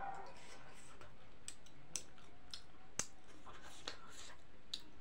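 A person chewing a mouthful of food, with scattered wet mouth clicks and smacks; the sharpest click comes about three seconds in.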